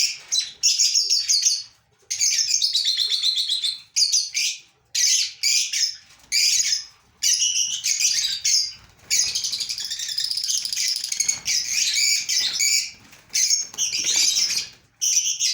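Fischer's lovebirds calling: shrill, rapid chattering in bursts of one to two seconds with short breaks between them.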